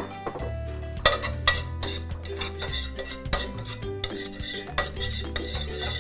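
A utensil stirring in a frying pan, with irregular clinks and scrapes of metal on the pan. Background music plays underneath.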